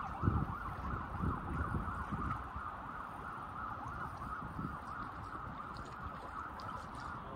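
Spinning reel being wound steadily, giving a wavering whir that stops near the end, with a few low thumps underneath.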